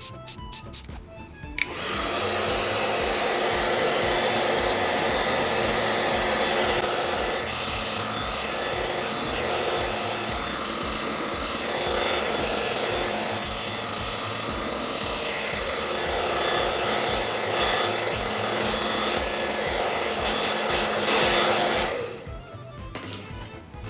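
Handheld hair dryer running steadily, blowing warm air to speed the drying of a coat of vinyl spray paint. It switches on about two seconds in and cuts off near the end.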